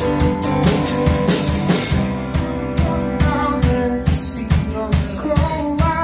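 Live rock band playing: a drum kit keeps a steady beat under electric guitar, bass guitar and a Roland FP-4 digital piano.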